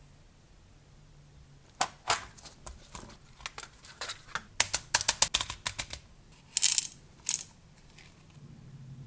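Clear plastic case of miniature HSS twist drill bits being handled: a run of sharp plastic clicks and taps, then two short scraping rattles a little before the end.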